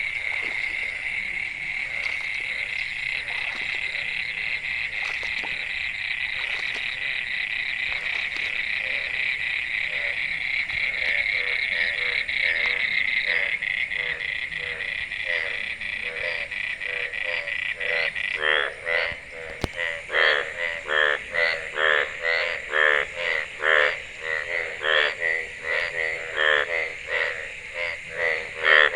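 Frogs and toads calling in a rain-triggered chorus: a dense, continuous trilling of many callers. About two-thirds of the way in, a nearer frog's loud croaks start repeating a little over once a second over the chorus, and a single sharp click comes shortly after.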